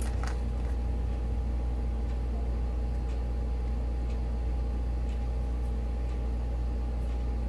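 A steady low hum, with a few faint clicks of small tools being handled.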